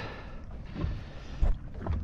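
Wind rumbling on the microphone, with a couple of short dull knocks, the louder one about one and a half seconds in.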